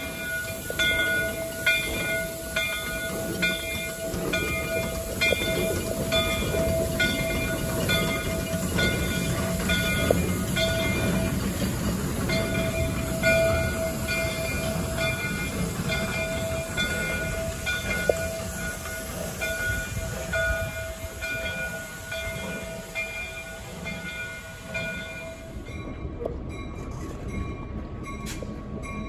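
A railway bell ringing steadily at about two strokes a second over a low rumble of locomotives, stopping near the end.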